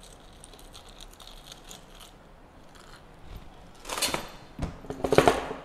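Ice cubes from a metal scoop settling in a tall glass with faint clinks. Then come two louder bursts of crunchy, rattling clatter, about four and five seconds in.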